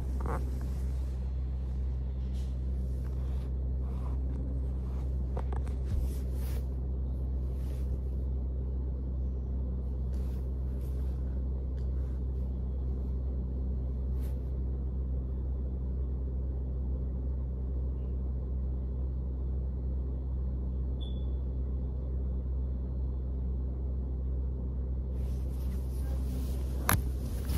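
Steady low droning hum, with the phone knocking and rustling against fabric several times in the first few seconds and again near the end.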